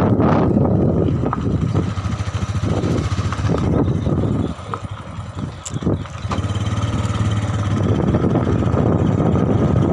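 Small vehicle engine, heard from on board while riding, running steadily with wind rumble on the microphone. It eases off for about two seconds around the middle, then picks up again.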